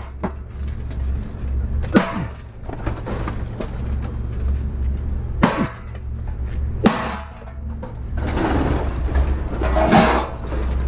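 Sharp knocks from scrap items being handled, about two, five and a half and seven seconds in, then a stretch of rustling and shuffling, over a steady low rumble.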